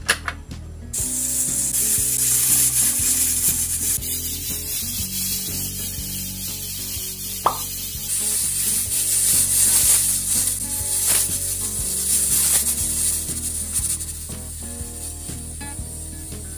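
Aluminium pressure cooker on a gas burner hissing steadily as steam escapes from its vent. The hiss starts about a second in and eases off near the end.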